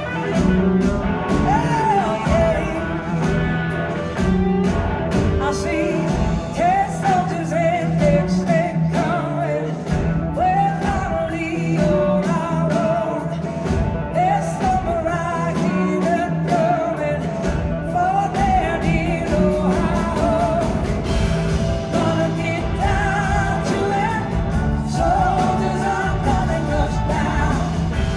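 Live rock band playing loudly, with a singing voice over the band.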